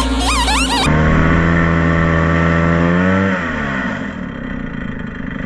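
Background music cuts off about a second in, giving way to an engine running steadily at high revs. A little past three seconds its pitch drops as it slows, settling to a lower rumble.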